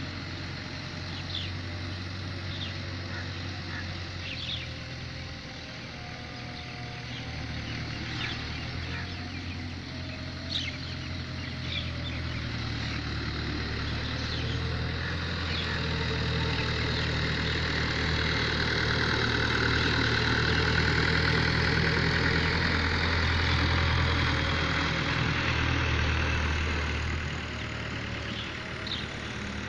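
Farm tractor's diesel engine running steadily while it pulls a tillage implement across loose soil. It grows louder through the middle, peaks, and then eases off near the end. Short high clicks sound now and then in the first half.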